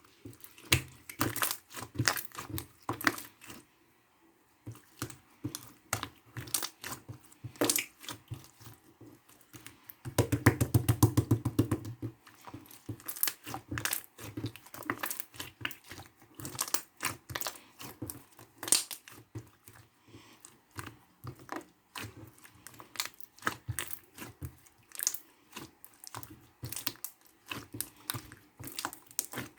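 Slime being squeezed, poked and stretched by hand, making irregular sticky clicks and pops. About ten seconds in comes a fast, louder run of pops lasting about two seconds.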